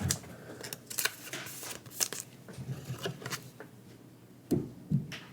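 Pokémon trading cards and booster-pack wrappers being handled on a desk: scattered light clicks, flicks and rustles, with two brief low sounds near the end.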